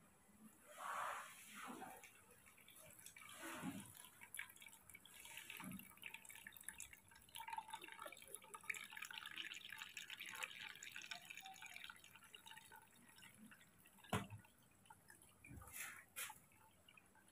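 Carrot juice trickling and dripping faintly through a small plastic strainer into a plastic jug. One sharp knock late on.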